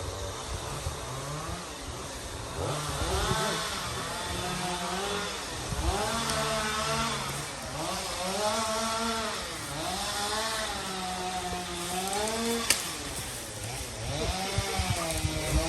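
Chainsaw running while cutting, its engine pitch rising and falling again and again every second or two as it is revved and loaded.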